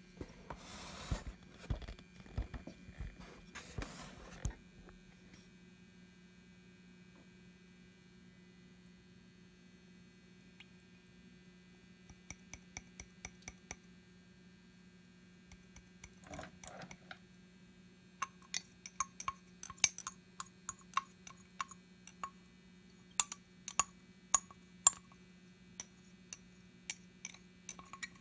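Steady low electrical hum, with a rustling, handling noise in the first few seconds and, from about twelve seconds in, a string of sharp, irregular clicks and clinks.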